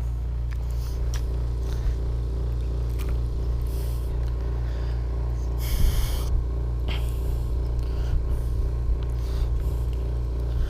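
Steady low mechanical hum, with a few light clicks and a short hiss about six seconds in.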